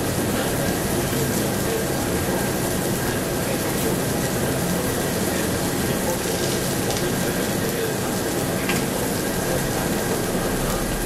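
Pork sizzling on a tabletop barbecue grill: a steady crackling hiss that holds even throughout, with no breaks.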